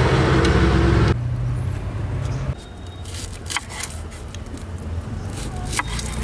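Cashews sizzling in hot ghee for about a second, then, after a cut, a large knife slicing a red onion on a wooden cutting board, with a few sharp knocks of the blade against the board.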